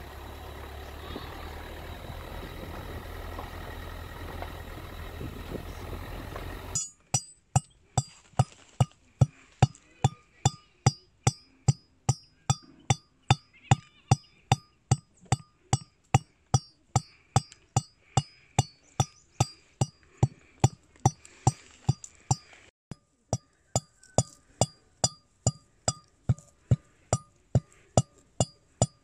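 Brass mortar and pestle pounding dried herbs: sharp, ringing metallic strikes at about two a second, with a brief pause near the end. Before that, for about the first seven seconds, the steady rumble of a moving car, which cuts off abruptly.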